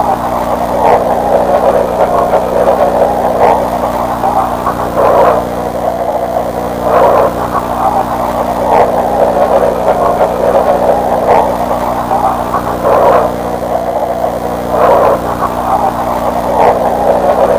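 Dense stadium crowd noise from an old broadcast recording, swelling in a regular rhythm about every two seconds as if chanting, over a steady low hum.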